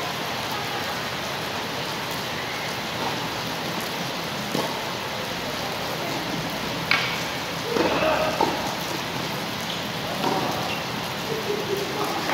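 Tennis ball struck by rackets twice during a doubles rally, sharp knocks about two seconds apart, the second louder, over a steady hiss. Brief voices of the players follow in the second half.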